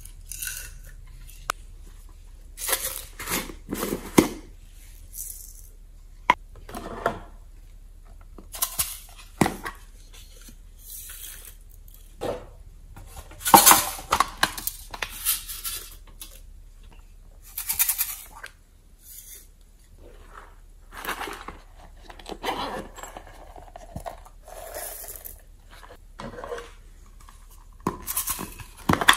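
Plastic cases and containers being handled, clicked and tapped, with glitter and sequins shaken out onto slime in a glass dish: a run of irregular clicks, taps and short rattles.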